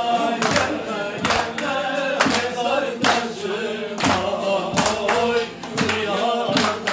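A group of men clapping in time to live Turkish folk music: a man's voice singing a slow song, accompanied by bağlama (saz).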